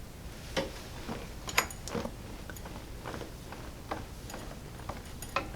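Irregular soft clicks and light knocks from a chiropractic adjustment on a treatment table, with one sharper click about a second and a half in.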